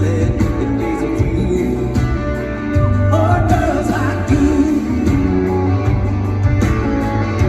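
Live country-rock band playing: a heavy, steady bass line with drums and guitars, and a wavering melody line that comes in about three seconds in.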